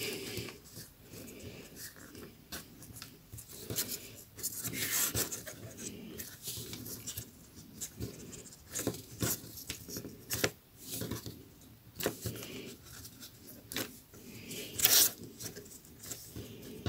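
Rolled newspaper tubes being pulled tight and woven by hand: scattered soft rustling and light clicks of paper rubbing and sliding against paper, a little louder about five seconds in and again near the end.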